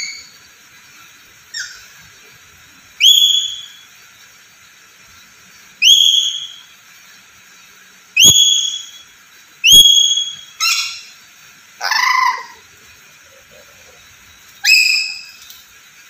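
Black-capped lory giving loud, shrill whistles that slide upward, repeated every two to three seconds. Around the middle it adds a few shorter calls and one lower, rougher call.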